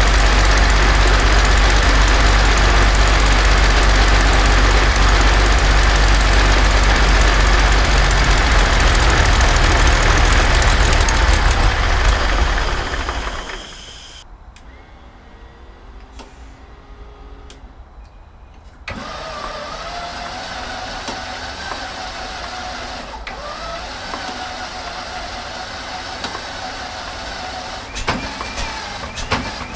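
Rolls-Royce Merlin XX V12 aero engine running on a test stand with its propeller turning, then shut down about thirteen seconds in, the noise dying away within a second or so as the propeller winds down. A few seconds later a quieter steady sound with a faint wavering whine comes in suddenly, with a few sharp clicks near the end.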